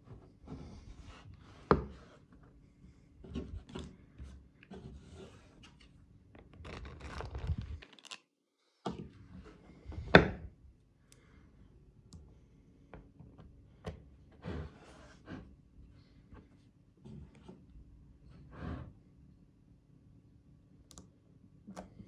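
Small neodymium magnetic balls clicking and clacking as layers of a hexagonal magnetic-ball block are pulled apart and snapped back together by hand, in irregular sharp clicks with a few seconds of denser rubbing and rattling. The two loudest clacks come just under two seconds in and about ten seconds in.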